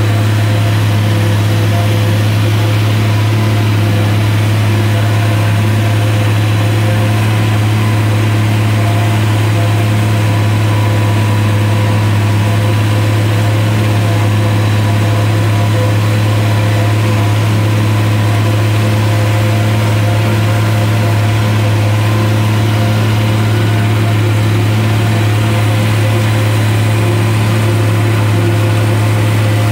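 International 1256 tractor's turbocharged six-cylinder diesel running steadily under load from inside the cab, with the New Holland 790 forage harvester it pulls running as it chops corn. A loud, even drone with no change in pitch.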